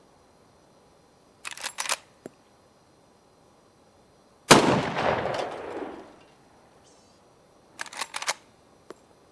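A Marlin 30TK lever-action .30-30 carbine: a quick run of metallic clicks as the action is worked about a second and a half in, then a single loud shot with a long echoing tail, then the lever is cycled again with another run of clicks near the end.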